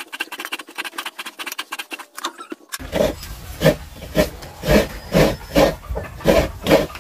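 Fine crackling and rustling, then a sudden change about three seconds in to an animal grunting over and over, about two grunts a second.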